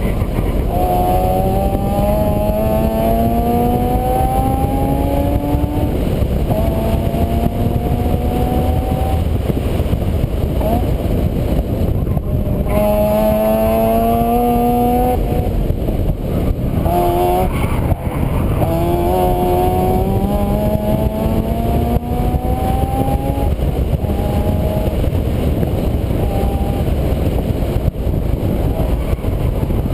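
A vehicle engine accelerating through the gears: its pitch climbs for a few seconds, drops back at each upshift and climbs again, about five times. A loud, steady rushing noise runs underneath.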